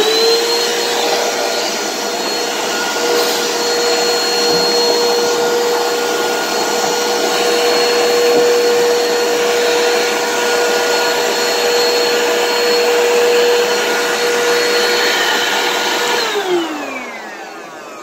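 Vacuum cleaner running with a steady whine over a rush of air, its nozzle sucking dust out of a clogged refrigerator heat exchanger. About 16 seconds in the motor is switched off and winds down with a falling whine.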